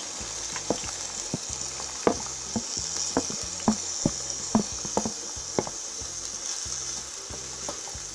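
Chopped bell peppers and chilies sizzling in hot vegetable oil in a metal pot: a steady high hiss. A wooden spatula knocks and scrapes against the pot as they are stirred, about ten knocks in the first six seconds, then only the sizzling goes on.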